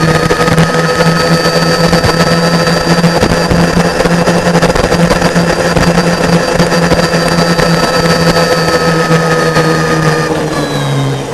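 Golf cart's D&D 12 HP separately excited DC motor, driven by an Alltrax DCX500 controller, whining steadily at speed under the load of a 500 lb trailer, over a steady rushing noise. Near the end the whine drops a little in pitch and the sound gets quieter as the cart slows.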